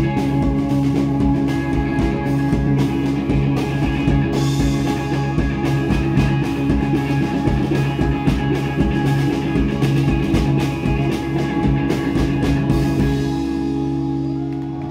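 Live rock band playing an instrumental passage on electric guitar, bass guitar and drum kit. Near the end the drums stop and a final chord keeps ringing.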